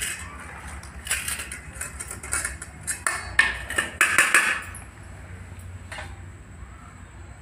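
Steel spoon clinking and scraping against a stainless steel bowl and plate while spooning a runny tamarind-chilli relish onto rice. The clinks come in a cluster about a second in and a louder run from about three to four and a half seconds in, then it goes quieter.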